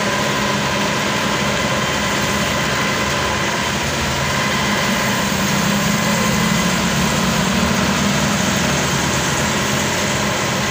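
Combine harvester's engine running steadily at an even speed.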